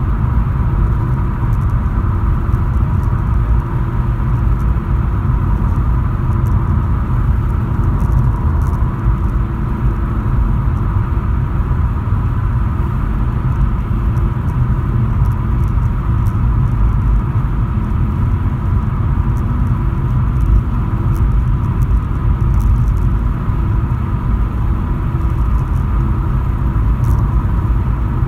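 Steady low rumble of tyre and engine noise inside a Volkswagen Polo's cabin, cruising on a motorway.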